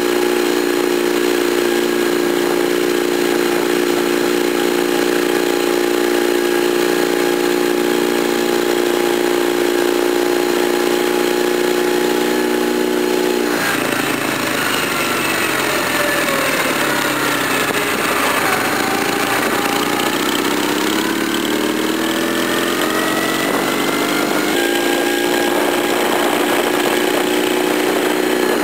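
Classic motorcycle's engine running at a steady pace under way, heard from on the bike with rushing air over the microphone. About halfway through, the engine note falls away as the bike slows, then climbs again as it picks up speed, and settles back to a steady note for the last few seconds.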